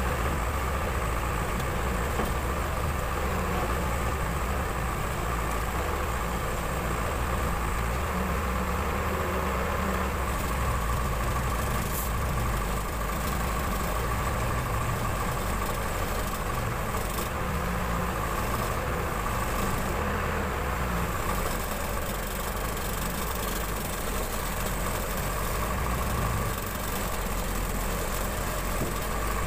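Diesel engine of a Case 580 Super L backhoe loader running steadily with no revving, with a steady whine over its low rumble.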